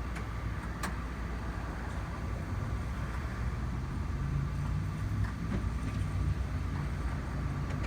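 Steady low hum of an EVgo DC fast charger as the charging session starts up, growing a little stronger about halfway through. A sharp click comes about a second in.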